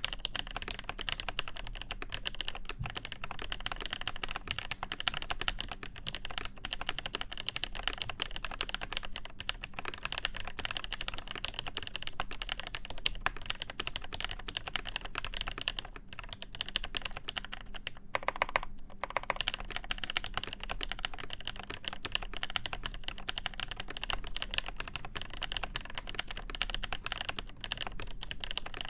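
Continuous fast typing on a Cherry G80-1813 (Dolch PAC) mechanical keyboard with lubed Nolives switches, mounted on the PCB without a plate and capped with original Cherry Dolch keycaps: a steady, dense stream of key clacks.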